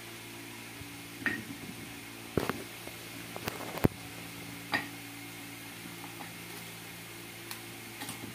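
Scattered metal clinks and knocks, about seven, the sharpest a little before the middle, as the end housing of a John Deere 5105 tractor's starter motor is handled and fitted onto the starter body. A steady low hum runs underneath.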